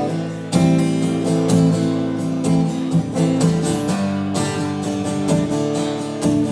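Acoustic guitar strumming a chord pattern in a steady rhythm, the intro to a country song.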